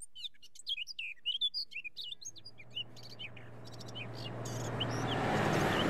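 Birds chirping in quick short calls. From about two seconds in, a low drone with a rising rush grows steadily louder as a truck approaches, and the birdsong fades under it.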